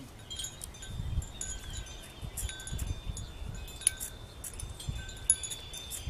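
Wind chime tinkling: scattered high, ringing tones, with a few sharp clicks.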